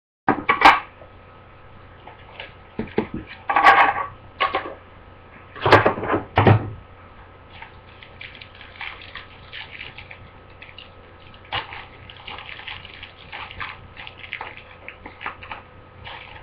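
A trading-card box being opened and its contents handled: several sharp rips and knocks in the first seven seconds, then light, steady crackling and rustling of the packaging.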